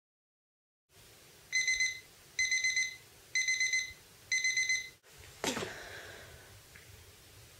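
Digital alarm clock beeping in four quick bursts of rapid high beeps, about one burst a second. The beeping stops after about four seconds, and a short falling whoosh follows.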